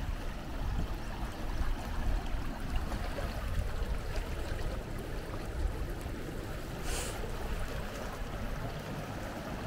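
Water rushing steadily down a narrow stone-walled channel, rippling over its stony bed.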